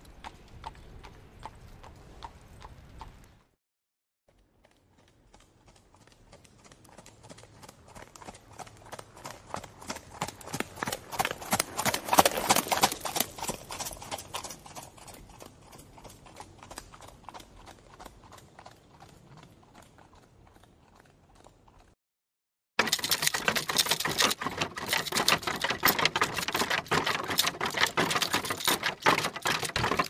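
Horse hoofbeats in quick runs of strikes, in three separate stretches. The first fades out a few seconds in. The second grows steadily louder to a peak about twelve seconds in, then fades away as if the horse passes by. After a short break, a closer, louder run of hoofbeats starts suddenly.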